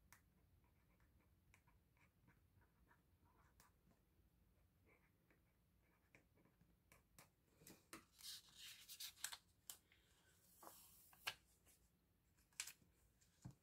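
Faint desk-top handling noises of binder supplies: scattered light clicks, then from about seven seconds in a few seconds of scratchy rustling with several sharper clicks.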